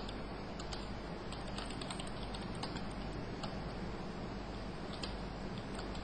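Typing on a computer keyboard: irregular light key clicks over a steady background hiss and low hum.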